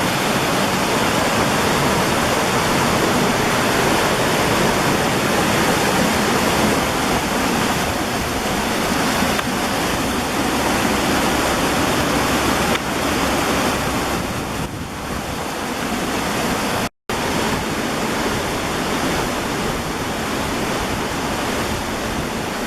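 Waterfall rushing, a loud steady roar of falling water, broken by a split-second dropout about three-quarters of the way through.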